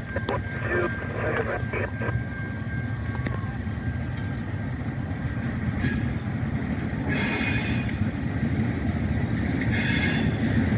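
Low rumble of an approaching train, growing steadily louder, with a thin steady squeal over it for the first few seconds. Two short bursts of hiss come about seven and ten seconds in.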